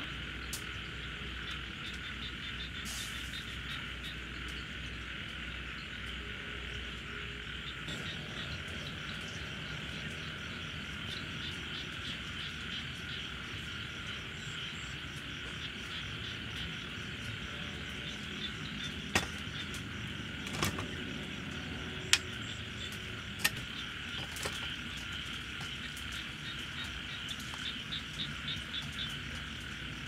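Steady chorus of insects, with a few sharp clicks or taps about two-thirds of the way through.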